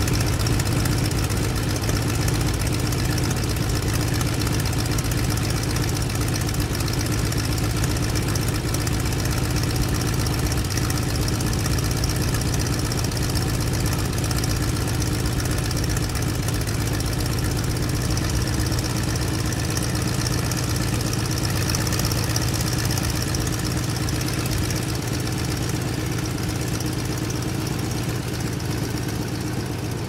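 Airplane engine idling steadily, heard from inside the cockpit.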